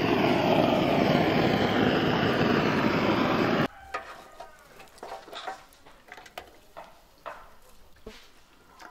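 Gas blowtorch flame roaring steadily as it lights lump charcoal in a steel grill, cutting off abruptly about three and a half seconds in; after that, only faint scattered clicks.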